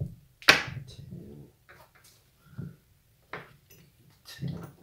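Sharp knocks and clunks of the Suzuki Vinson ATV engine's aluminium case halves being handled and fitted together on the workbench. The loudest knock comes about half a second in, with several lighter ones spaced irregularly after it.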